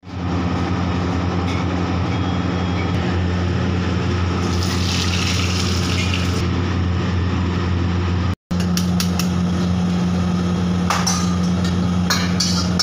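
Steady low machine hum throughout. Oil sizzles for a couple of seconds about halfway through, and there are a few sharp metal clinks of a ladle against the wok near the end.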